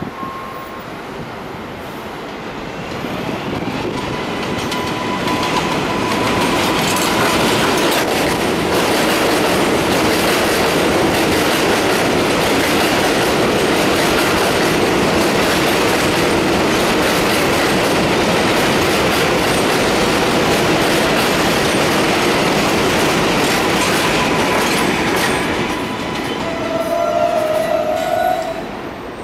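Kawasaki R188 subway train pulling into an elevated station. The rumble and clatter of its wheels on the steel elevated track swells as it arrives, runs loud and steady as the cars pass, then eases as it slows. A brief squeal near the end comes as it stops.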